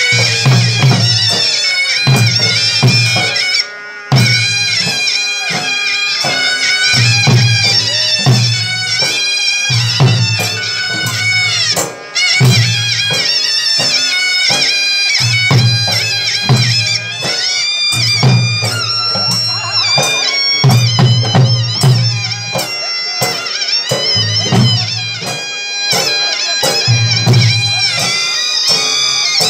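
Live folk drumming and piping: deep barrel drums (dhol) beat a repeating rhythm under a shrill reed pipe playing a bending, ornamented melody.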